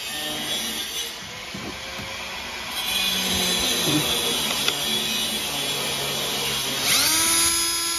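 A cordless drill with a step drill bit cuts through a steel plate, grinding. About seven seconds in, the motor winds up into a steady high whine.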